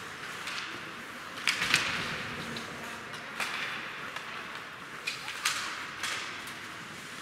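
Ice hockey play: skate blades scraping on the ice, with sharp clacks of sticks and puck several times, the loudest pair about a second and a half in.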